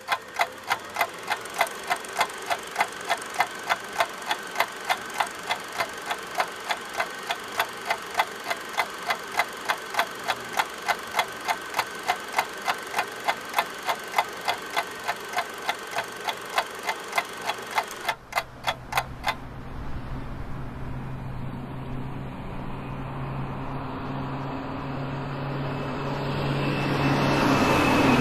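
Fast, even ticking, about three ticks a second, stops after roughly eighteen seconds. A steady low mechanical drone with a rush of noise then builds, growing louder until near the end.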